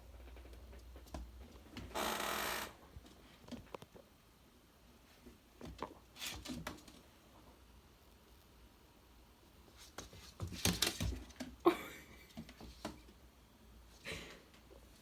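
An animal making short, scattered honking noises: a longer noisy one about two seconds in, a few more around six seconds, and a cluster between ten and twelve seconds.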